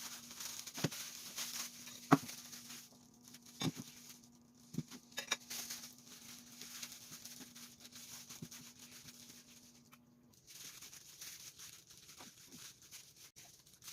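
Rice cake sticks being handled and set into a waffle maker: a series of knocks and clatters, the sharpest about two seconds in, over a steady low hum that stops just after ten seconds.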